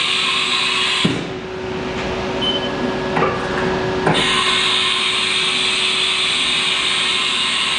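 Haas TM-2 CNC vertical mill working through a simulated tool change: a steady high hiss cuts off with a click about a second in, leaving a steady hum, a couple of knocks follow, and the hissing starts again a little after four seconds.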